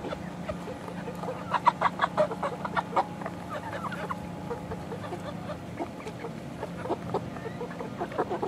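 Young chickens, about eleven weeks old, clucking: a busy flurry of short calls a second and a half to three seconds in, then scattered clucks, over a steady low hum.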